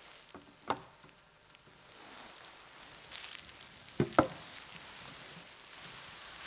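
Faint rustling and handling noise at a table, with a knock a little under a second in and a louder double knock about four seconds in, as a performer gets up from her chair.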